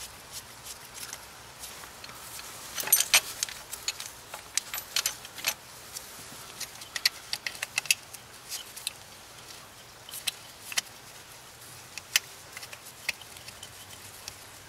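Irregular light metallic clicks and clinks of 12 mm bolts and the coil pack bracket being handled and started by hand on the engine.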